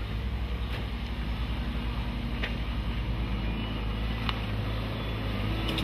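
JCB Teletruck telescopic forklift's engine running steadily as its boom lifts an appliance out of a pickup bed, with a few faint clicks.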